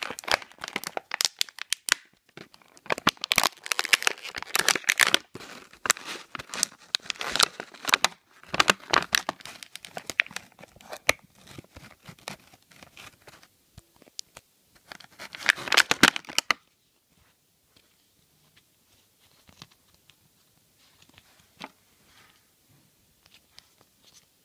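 Clear plastic action-figure packaging being crinkled and torn open by hand: dense, irregular crackling that stops suddenly about sixteen seconds in, followed by faint, sparse handling sounds.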